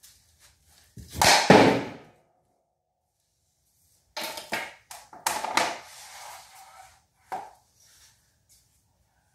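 Hockey slap shots off a plastic shooting pad: sharp cracks of the stick hitting the pad and puck, and the puck hitting the net and garage door with a rattle. One loud shot about a second in, a run of several hits and rattling from about four to seven seconds, and a single knock near the end.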